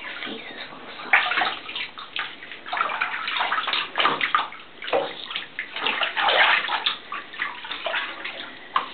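Bathwater splashing and sloshing in a tub as a wet puppy is rinsed and rubbed by hand, in many irregular splashes.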